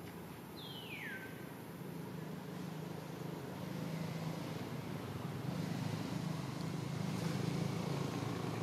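A low engine hum, steady in pitch, that grows slowly louder, with one short high whistle falling in pitch about a second in.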